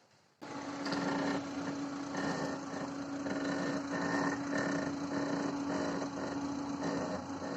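Renault Mégane III with its engine idling, and a creak from the front suspension as the steering wheel is turned. The creak is the sign of worn strut top-mount bearings. The sound starts abruptly about half a second in.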